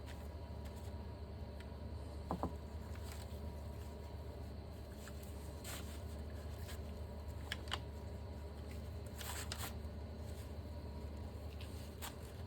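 Hands handling brake caliper parts: scattered light clicks and rustles, with a brief clink about two seconds in, over a steady low hum.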